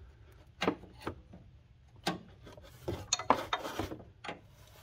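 Metal wrench clicking and scraping on the power steering line's threaded fitting at the pump, in irregular clinks as it is hooked on, turned a short way and re-set again and again to loosen the fitting. The clinks come closer together about three seconds in.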